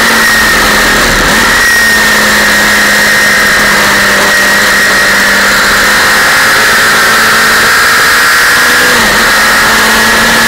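Suzuki sports motorcycle engine running hard at steady high revs under loud wind rush on the onboard microphone. Its pitch dips briefly about a second in and again near the end.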